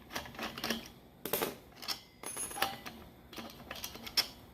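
Irregular light clicks, taps and rattles of small plastic and metal PC parts and a fan cable being handled and fitted, about a dozen sharp ticks spread unevenly with the sharpest about a second in and near the end.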